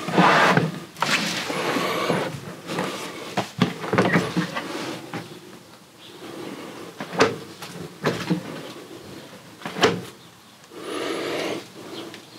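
A camper's 12 V compressor fridge being pushed and handled in its wooden cabinet: scraping with several sharp knocks, one right at the start and others about 7 and 10 seconds in.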